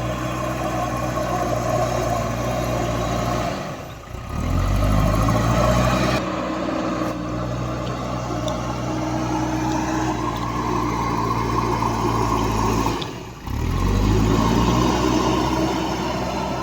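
Heavy diesel engine of road-repair machinery running steadily under load. It drops away briefly twice, about four seconds in and near thirteen seconds, and each time revs back up with a rising pitch.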